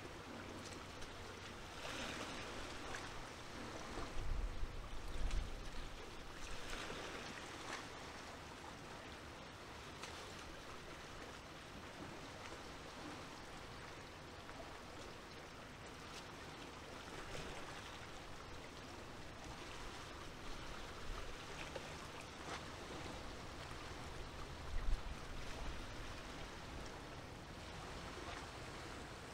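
Small waves washing and lapping at the shore, swelling every few seconds, with wind buffeting the microphone in deep gusts twice.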